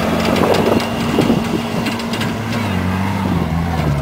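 WWII jeep's four-cylinder flathead engine running off-road under steady load, its note dipping slightly a little past halfway. It is overlaid by frequent clicks and knocks from the vehicle rattling over rough ground.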